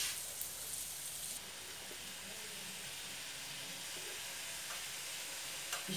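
Chopped onion and garlic frying in oil in a frying pan: a steady sizzle that drops a little about a second and a half in.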